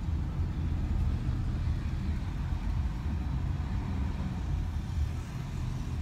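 Steady low rumble of road and engine noise heard inside a car's cabin while driving.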